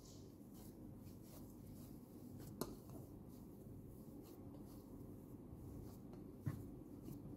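Hands kneading a mashed potato and cornstarch dough in a glass bowl: faint soft squishing and rubbing, with two sharper clicks, about two and a half seconds in and again near the end.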